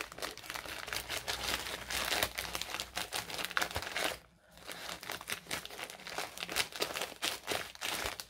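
Plastic packaging crinkling and rustling as a rolled-up diamond-painting canvas is worked into its plastic sleeve, with a short pause about four seconds in.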